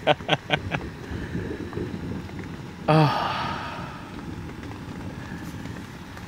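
A quick run of sharp clicks in the first second, then a man's long, falling sigh about three seconds in, over a steady low hiss.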